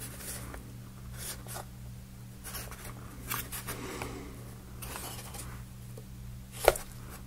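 Laser-cut plywood model parts being handled and fitted together: scattered light wooden clicks and soft scraping as the discs are turned and pressed into place, with one sharper click near the end.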